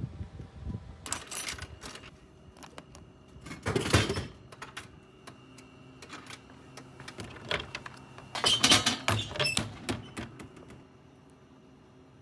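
Clicks, knocks and rustling of things being handled, in three bunches: about a second in, around four seconds, and from about eight to ten seconds, with a faint steady whine in between.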